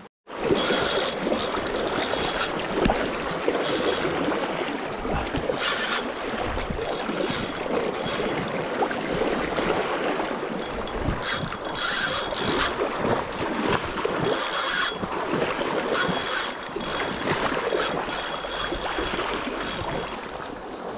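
Spinning fishing reel whirring and clicking in repeated short bursts while a hooked fish is played, over the steady rush of a shallow river.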